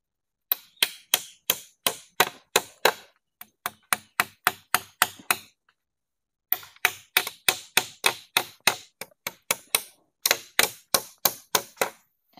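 Hammer blows on wood, a quick steady run of sharp knocks about three a second, in two runs of several seconds each with a pause of about a second between them, as a piece of the shelter frame is fastened in place.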